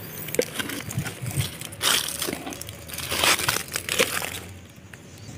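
Dry fallen leaves and weeds rustling and crackling irregularly as someone searches through them, with a few louder crunches about two, three and four seconds in.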